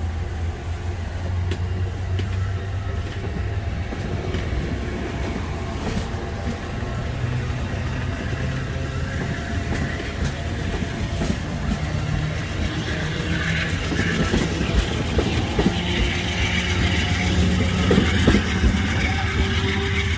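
Norfolk Southern freight train passing on the main line: a steady low rumble of rolling wheels and cars with scattered sharp clicks. It grows louder and fuller in the second half.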